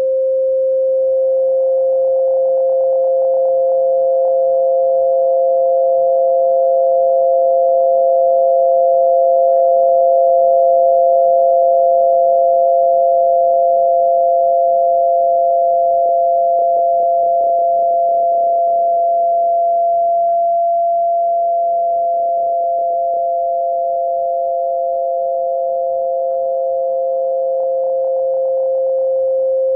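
Two steady electronic sine tones held together as a tinnitus-masking sound: a strong lower tone and a softer, slightly higher one. The higher tone fades in about a second in and fades out near the end, and the lower tone wavers slowly about halfway through.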